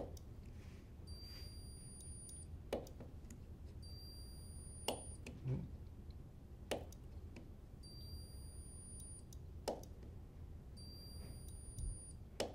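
Handheld spot welder tacking a thin steel strip onto a steel bar. About six sharp snaps come one to three seconds apart, one for each weld, over a low hum, with a faint high-pitched whine coming and going between them.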